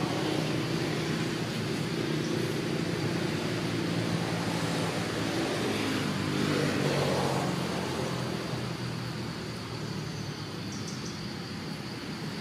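Steady hum of motor traffic, swelling about six to seven seconds in and easing off toward the end.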